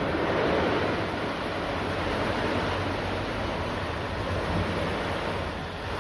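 CNC polishing machine running: a steady rushing noise with a low motor hum underneath.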